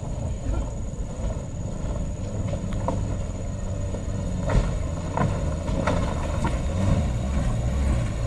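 Daihatsu Gran Max pickup's engine pulling up a steep, rough stony track, its low rumble growing louder near the end as it nears. A few sharp clicks from about the middle on, as of stones under the tyres.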